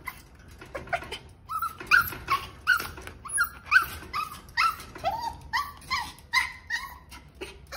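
Small dog giving a rapid run of short, high-pitched barks, about two to three a second.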